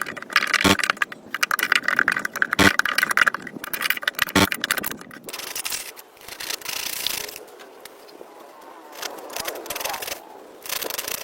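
Rapid, dense scraping strokes for about five seconds, broken by three sharp knocks, then quieter, intermittent scraping.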